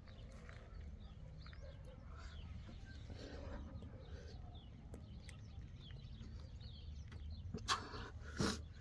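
Faint rural background: a steady low rumble with scattered faint animal calls, and two short sharp sounds near the end.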